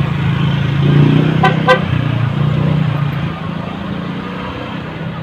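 A vehicle horn gives two quick toots about a second and a half in, over the steady low hum of an engine in slow street traffic.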